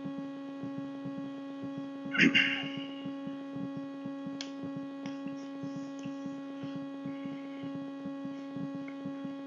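Steady electrical hum with several overtones in the recording's background. A short, louder noise comes about two seconds in, and a faint click a couple of seconds later.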